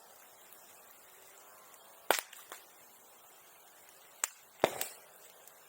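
Bonfire popping: wood bursting in the fire with sharp, firecracker-like cracks, a loud pair about two seconds in and a cluster of three near the end.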